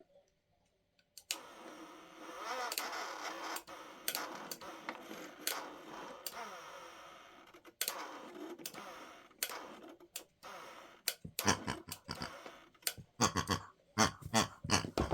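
Toy washing machine starting about a second in and running with cardboard hexagons tumbling inside, with scattered clicks. Near the end the cardboard pieces knock and clatter louder and faster.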